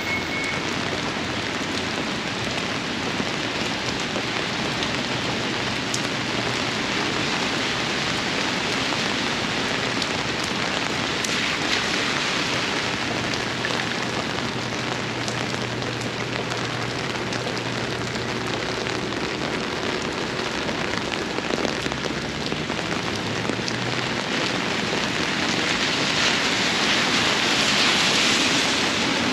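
Steady heavy rain falling and pattering on surfaces. A faint low hum runs through the middle, and the rain noise swells briefly near the end.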